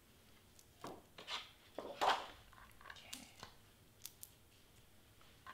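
Cardstock rustling and scraping as a sheet is lifted and slid across the cutting mat, several strokes in the first two seconds, the loudest about two seconds in; a few faint ticks follow about four seconds in.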